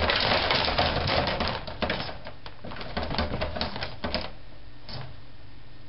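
Rapid clicking and rustling of cables jostled against a shaken fabric hand puppet, dense for about four seconds, then a single click, over a steady low hum.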